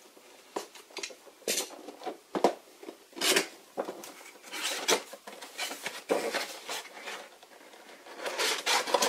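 Cardboard Nendoroid figure box being opened by hand: the end flap pulled open and the printed inner card and packaging slid out, giving irregular scraping and rubbing with light knocks.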